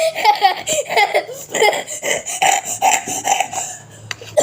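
Laughter in repeated short bursts, dying away near the end.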